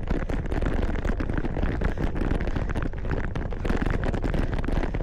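Gravel bike tyres rolling over loose gravel: a steady dense crunching and crackling with the bike rattling, over a low rumble of wind on the microphone.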